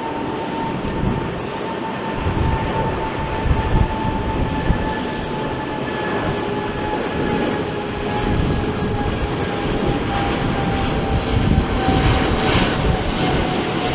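Boeing 777 freighter's twin GE90 turbofans at take-off power: a steady, heavy rumble with a whine that slowly drops in pitch.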